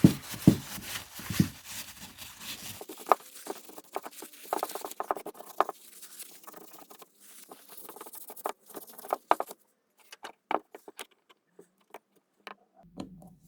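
Light clicks and taps of carburetor parts and tools being handled, in irregular runs that thin out toward the end, with a hiss and a few low knocks in the first three seconds or so.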